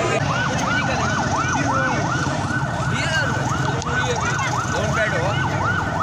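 Electronic siren yelping, its pitch sweeping up and down quickly, about two to three sweeps a second, over steady street noise.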